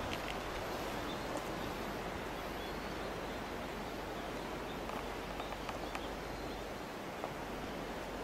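Steady outdoor noise of wind and rustling vegetation, an even hiss with a few faint small clicks.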